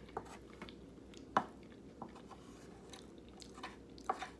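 Chewing of a soft mouthful of chili and rice, with scattered wet mouth clicks and smacks; the sharpest comes about a second and a half in, and two more come close together near the end.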